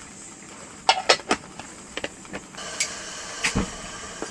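Light metal clinks of a lid being set on a mess tin, then a petrol camping stove's burner starts hissing steadily about two and a half seconds in, with a few more knocks of metal on the stove.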